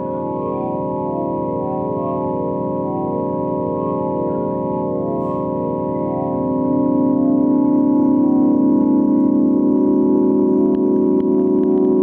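Synthesized space-sound drone: a thick, organ-like chord of steady tones with a slow pulsing shimmer, swelling louder about halfway through, with a few faint clicks near the end.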